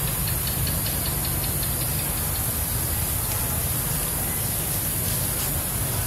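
Steady low rumble under a constant high hiss, with a short run of faint rapid ticks about a second in.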